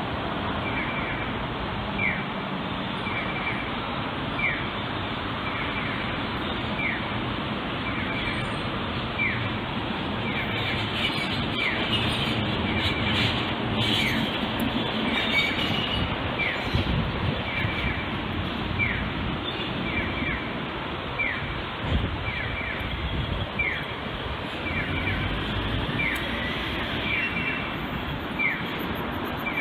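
Steady rushing jet noise from a Boeing 787 airliner flying low overhead. Over it, a short falling chirp repeats about every three-quarters of a second throughout.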